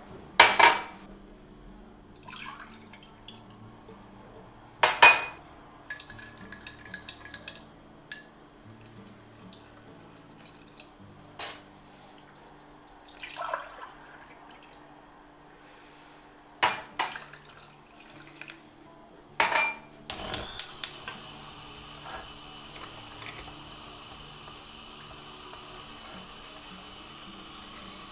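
Clinks and knocks of a tea glass and utensils against a stainless steel pot, with a brief glassy ringing and water poured in from a glass jug. A few clicks come about two-thirds of the way in, then a steady hiss continues to the end.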